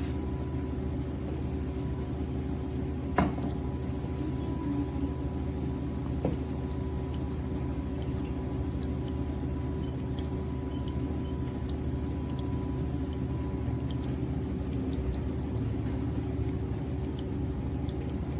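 De'Longhi Dinamica Plus bean-to-cup espresso machine running steadily while it brews espresso, a low mechanical hum with a faint steady whine. A sharp click about three seconds in and a softer one about three seconds later.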